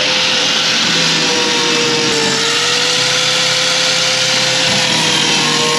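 Electric angle grinder grinding rust off a car's steel floor pan, running continuously with a steady whine that wavers slightly in pitch over a dense grinding hiss.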